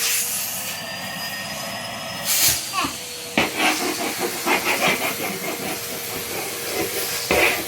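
Red Henry Hoover vacuum cleaner running with a steady hiss and whine, sucking up plastic beads that rattle and click through the hose, most busily from about three seconds in.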